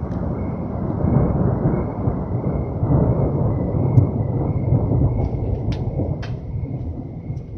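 Rolling thunder during a rainstorm: a deep rumble that swells over the first few seconds and then slowly dies away, with rain and a few sharp drip taps in the second half.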